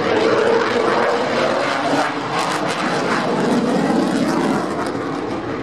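Loud jet noise from a canard-delta fighter jet banking hard overhead, with a crackle running through the middle.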